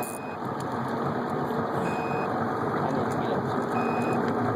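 An electronic beeper gives a short, steady high beep about every two seconds, in the manner of a vehicle's reversing alarm, over a steady rushing noise.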